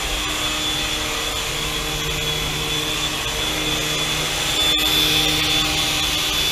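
Syma S107G coaxial micro helicopter flying, its small electric motors and rotors whirring steadily, with a high motor whine over the rotor hum.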